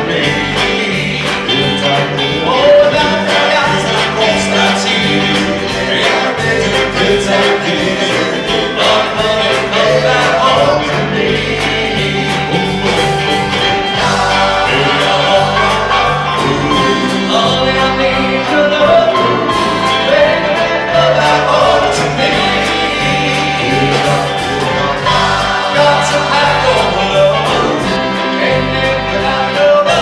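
Live doo-wop: a male vocal group singing in close harmony, lead voice over backing voices, with a band of drums, electric bass, guitar and keyboard playing continuously.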